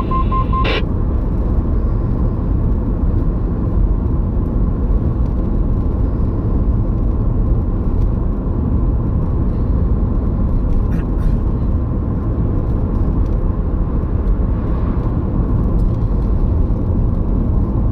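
Steady road and engine noise inside a moving car's cabin, with tyre rumble and a low drone. At the very start a CB radio's roger beep ends in a few short pips and a click.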